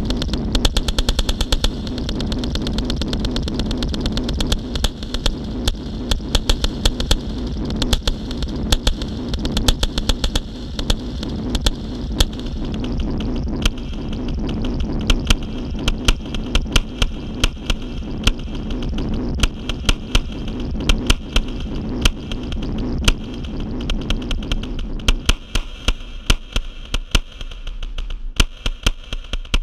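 Experimental electronic music: a dense, irregular stream of sharp clicks and crackles over a steady low drone. Near the end the drone thins and the clicks grow sparser.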